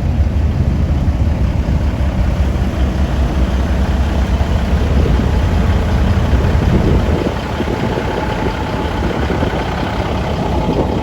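Truck engine idling, a steady low rumble that drops away about seven seconds in.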